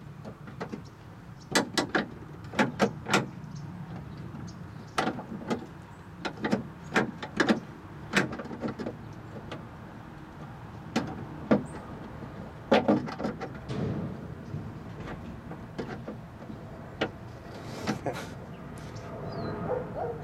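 Irregular sharp clicks and knocks from a replacement door lock cylinder and its linkage being worked into place inside a 1967 Cadillac's door, over a low steady hum.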